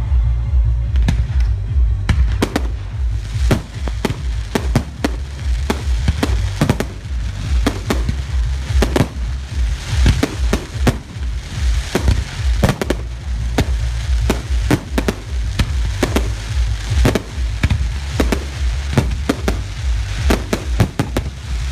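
Fireworks display: a rapid, irregular barrage of bangs, several a second and overlapping, with no let-up.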